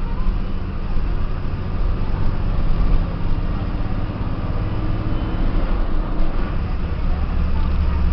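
Diesel engine of a Volkswagen 17-210 city bus running as the bus drives, heard from inside the cabin near the driver: a steady low drone with road noise.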